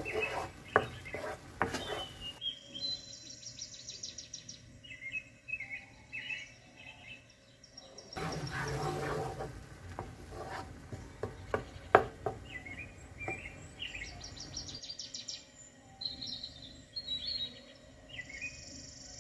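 Cooking utensils stirring and scraping food in a frying pan, with irregular clicks and knocks against the pan: a wooden spatula over shrimp and vegetables, then tongs through noodles. Short bird chirps come and go in the background, mainly in the quieter stretches.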